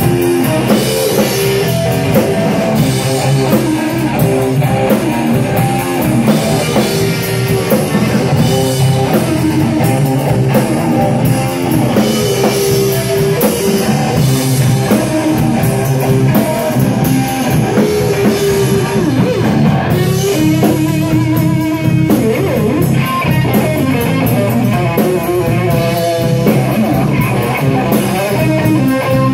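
Live rock trio playing an instrumental passage: electric guitar over a drum kit, with held notes and a few bent notes about two-thirds of the way through.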